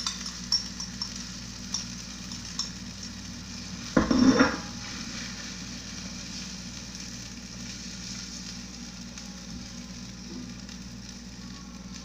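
Egg omelette mixture sizzling in a hot, oiled nonstick frying pan, with a few light taps of a fork on the pan as it is spread out. About four seconds in comes a brief, louder knock.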